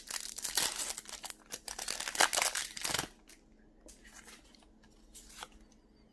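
Foil wrapper of a Pokémon Cosmic Eclipse booster pack being torn open and crinkled for about three seconds, then only faint rustles as the cards are handled.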